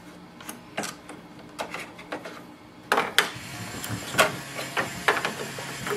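Short plastic clicks and knocks as ink cartridges are pressed in to unlatch and pulled out of an HP OfficeJet Pro 9135e printer's cartridge carriage. A low steady hum from the printer joins about halfway through.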